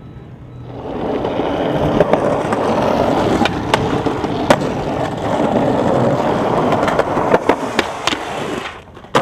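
Skateboard wheels rolling over concrete, growing louder over the first couple of seconds, with several sharp clacks of the board along the way. The rolling cuts off near the end, followed by a single loud smack.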